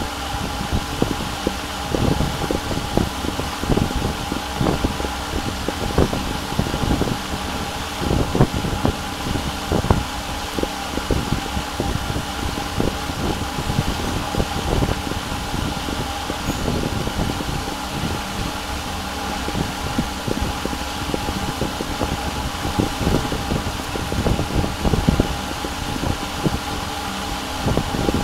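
A computer's cooling fan whirring steadily with a constant hum, with irregular low knocks scattered through it.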